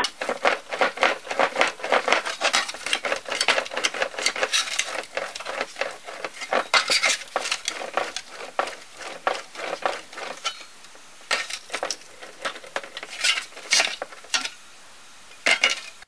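Rapid, irregular metallic tapping on a steel patch panel as it is shaped by hand to give it crown, several clinking strokes a second. The strokes thin out, with short pauses near the end.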